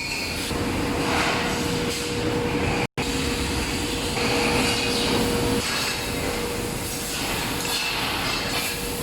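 Tube and plate laser cutting machines running together: a steady mechanical drone with a constant hum and a hiss. It breaks off for an instant about three seconds in.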